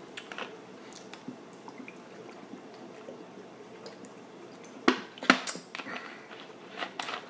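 A person drinking water from a plastic bottle: quiet sips and swallows with small clicks. Two sharp snaps stand out about five seconds in, and a few more knocks come near the end.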